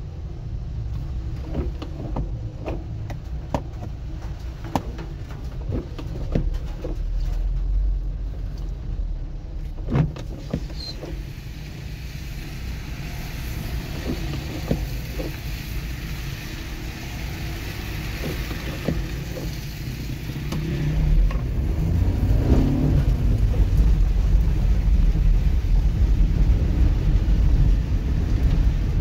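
Inside a car's cabin in rain: a steady low rumble of engine and wet road, with scattered sharp ticks and taps during the first ten seconds. About two-thirds of the way through the rumble grows louder as the car gets moving.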